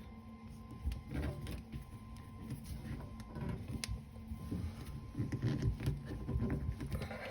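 Hands refitting parts on a faucet handle assembly: scattered small clicks and scrapes of metal and plastic parts, with low handling rumble.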